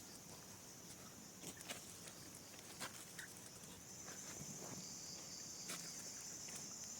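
Scattered soft rustles and snaps, like steps and movement in leaf litter, over a steady high-pitched insect drone that gets louder about four seconds in.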